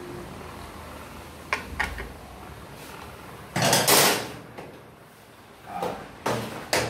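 Metal hand tools being handled: a few sharp clinks, then a loud clatter of metal on metal lasting under a second about three and a half seconds in, and a couple more knocks near the end.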